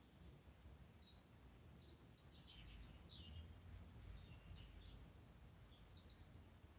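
Near silence: quiet room tone with scattered faint, high chirps like distant birds calling.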